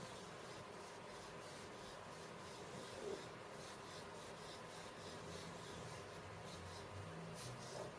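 Faint, irregular scratching strokes.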